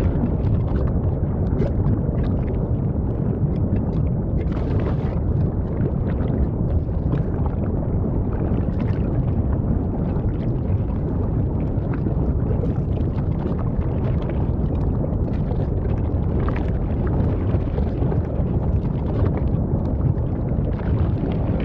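Lava fountain of a volcanic fissure eruption: a steady low rumble with scattered crackles and pops throughout.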